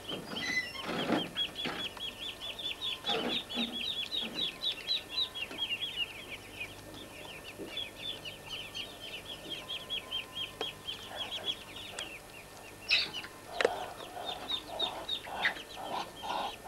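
Muscovy ducklings peeping: a fast run of short, high, downward-falling peeps, several a second, thinning out after the middle. Lower repeated clucking notes come near the end. A few rustles early on and one sharp knock a little past halfway.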